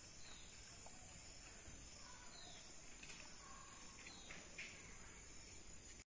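Faint outdoor ambience: a steady high-pitched drone of insects, with a few soft, short bird chirps now and then.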